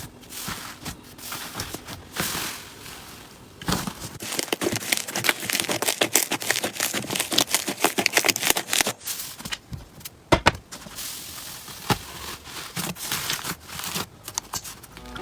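Slime being squeezed and worked by hand, making dense, irregular crackling and popping clicks that grow busier partway through, with one sharper pop.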